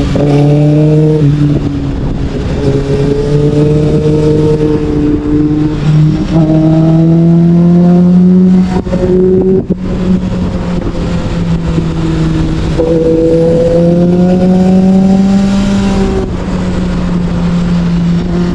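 Sportbike engine under way, its pitch climbing as it accelerates and dropping back several times at gear changes or off the throttle, with wind rushing over the microphone.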